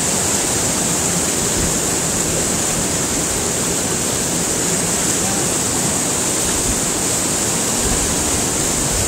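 Steady rush of flowing stream water, an even hiss at a constant level.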